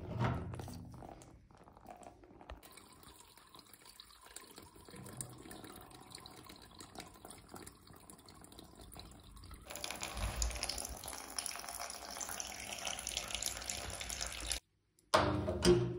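Water running out of an undone radiator valve into a plastic drip tray and collapsible bucket as the heating system is drained: a steady splashing stream that grows louder about ten seconds in. It breaks off near the end, and a couple of loud knocks follow.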